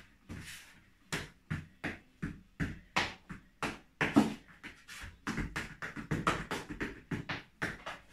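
Flamenco-style footwork: shoes stamping and striking a wooden floor in a small room, in single strikes about two a second at first, then a denser, quicker run of strikes from about halfway through.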